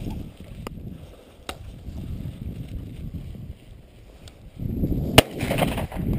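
Wind buffeting the microphone, a low rumbling noise with a few sharp clicks. It gusts louder for the last second and a half, with one loud click in the middle of that gust.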